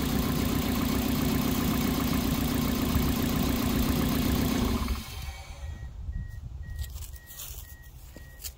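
Toyota Matrix four-cylinder engine idling, then switched off about five seconds in. A car chime then beeps steadily about twice a second, with a few faint clicks.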